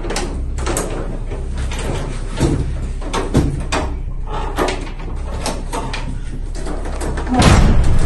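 Plastic clicks and knocks from the front panel of a wall-mounted split air conditioner being lifted and handled, over a steady low hum. A louder knock comes near the end.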